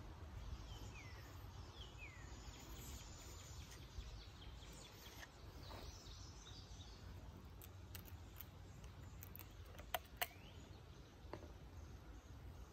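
Quiet outdoor ambience with a steady low rumble. Two faint downward chirps from a bird in the first two seconds, and a few light ticks ending in two sharper clicks about ten seconds in, as small metal valve parts are handled.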